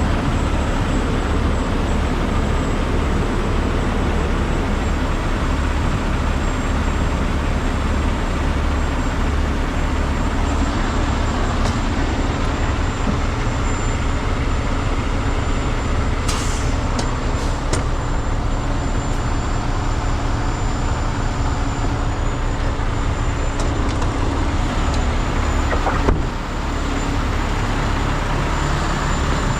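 Heavy diesel truck engine idling steadily with a low, even throb. A single sharp knock comes near the end.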